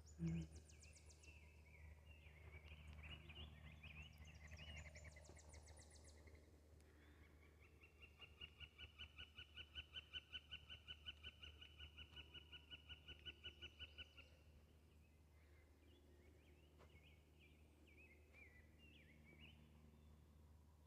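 Faint birdsong from several birds: quick high chirping and warbling, then one call note repeated steadily a few times a second for about six seconds, then more warbling. A short low bump right at the start.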